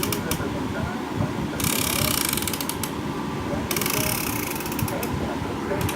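Mini moving-head LED stage light (7x10 W) running, its pan and tilt motors making a rapid ratcheting, clicking noise with a high hiss that cuts out and back in several times. This is the noise the owner reports from the faulty unit.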